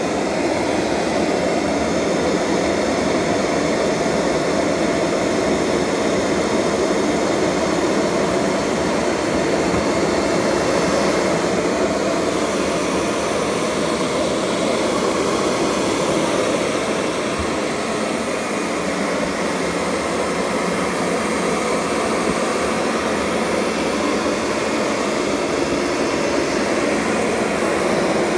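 Kirby Sentria II upright vacuum cleaner running steadily as it is pushed over carpet, picking up clumps of cat hair.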